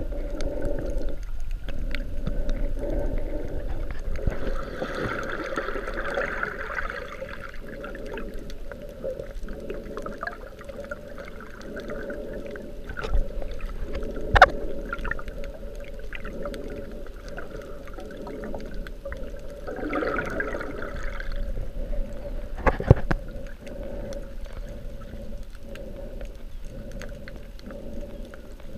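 Underwater sound through a GoPro Hero 3's waterproof housing: muffled, gurgling water movement over a steady low hum. Two louder swells of rushing water and two sharp knocks come in the second half.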